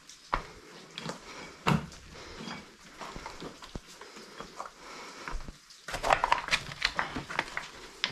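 Footsteps on loose, flat stone slabs, the rocks clinking and knocking as they shift underfoot, in irregular single strikes with a denser run of crunches about six seconds in.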